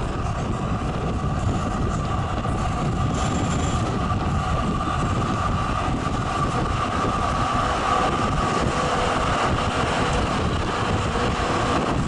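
Zürich tram running along street track, heard through an open window of the car: a steady rumble of the wheels on the rails with a steady high whine held over it.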